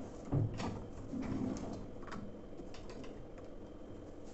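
A few light clicks and knocks of washing-machine parts being handled, the loudest about half a second in, over low room noise.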